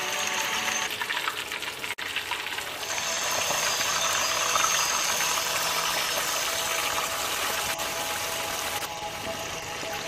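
Red snapper slices frying in hot oil in a wok: a dense, steady crackling sizzle. It breaks off briefly about two seconds in, and after that the sizzle is fuller.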